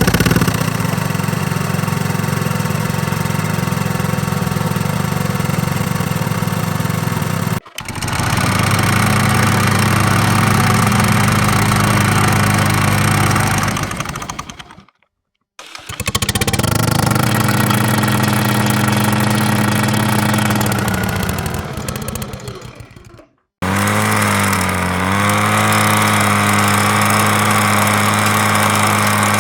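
Lawnmower engines running steadily, several different recordings one after another. There is a hard cut about seven and a half seconds in, a fade-out to a moment of silence around fifteen seconds, and another fade and cut near twenty-three seconds. In the last recording the engine's pitch dips briefly soon after it comes in, then steadies.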